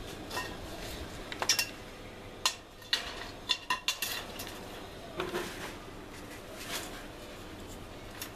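Sharp metallic clinks and taps: a hand tool knocking against steel reinforcing bar, several strikes in quick succession in the middle, with a few scattered ones after.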